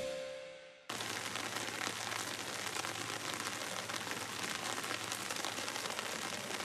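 Steady rain falling, an even patter with scattered drop ticks, which cuts in suddenly about a second in as the tail of a music jingle fades away.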